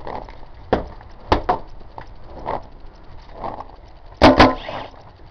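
Paintball marker shots: a few sharp, separate pops in the first second and a half, then a louder pair in quick succession near the end.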